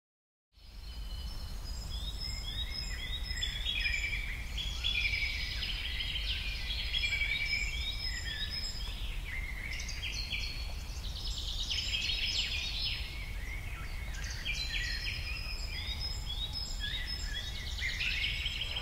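Several songbirds singing and chirping at once, many short overlapping warbles and trills, over a steady low rumble.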